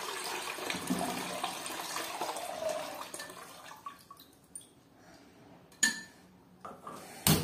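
Milk pouring steadily from a glass jug through a steel mesh strainer into a large steel pot; the pour thins to a trickle and stops about three seconds in. A few light clinks follow, then a sharper knock near the end.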